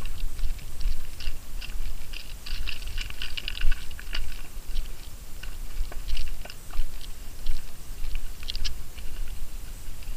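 Wind buffeting an action camera's microphone, a steady low rumble that rises and falls, with scattered crackling clicks over it.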